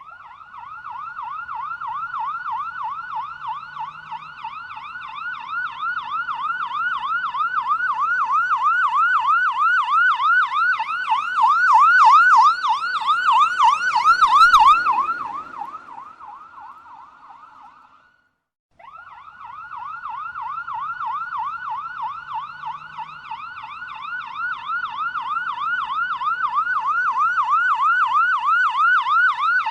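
Police siren sounding a rapid rising and falling yelp, about three sweeps a second, growing steadily louder. Past the middle it fades out and stops, then starts again and builds.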